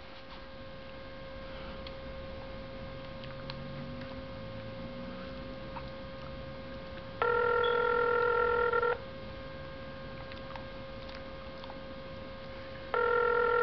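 Telephone ringback tone over a phone's speaker while a call is placed. Two rings, each just under two seconds long and about four seconds apart, over a faint steady hum.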